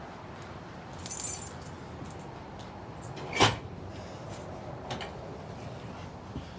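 A short metallic jingle about a second in, then a sharper clink about three and a half seconds in, with a few light ticks later, over steady outdoor background noise.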